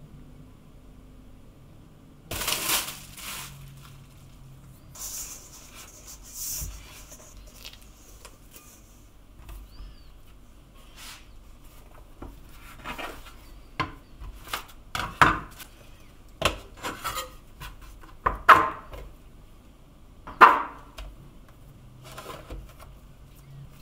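Rustling early on, then a run of sharp knocks as a metal dough scraper chops through a mass of pizza dough onto a wooden cutting board and the portions are set down.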